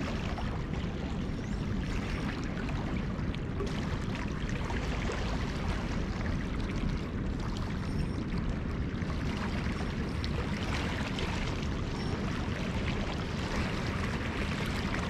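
Steady rush of river water flowing past a rocky bank.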